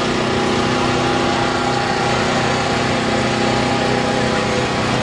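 A small engine running steadily at a constant speed, with an unchanging hum.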